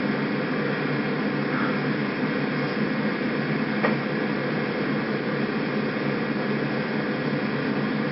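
Steady background hum and hiss with no other activity, broken only by one faint click about four seconds in.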